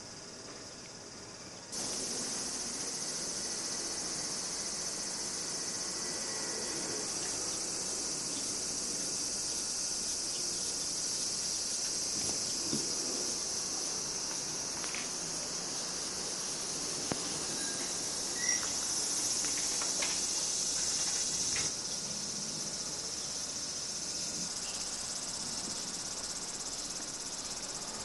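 Cicadas calling in a dense, steady, high-pitched chorus that sets in abruptly about two seconds in and eases slightly near the end.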